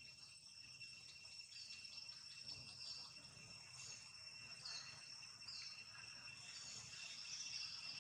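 Faint, steady high-pitched drone of insects, with a few short, high, falling chirps over it from about the middle on.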